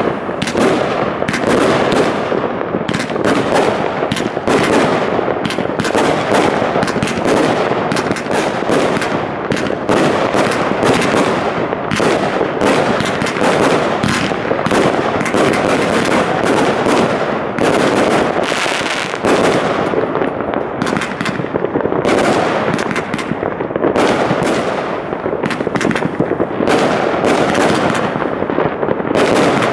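Consumer firework cakes firing in a rapid, near-continuous string of launch shots and bursting breaks, with no pause.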